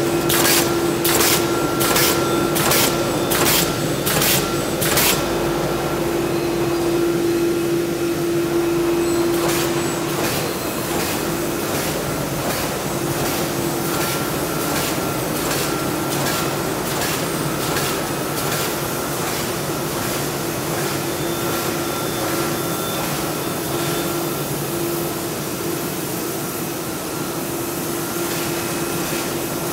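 Plastic wicket bag making machine running, a steady mechanical whine and hum under rhythmic clacks of its cycling strokes, about two a second, loudest in the first few seconds and quieter later.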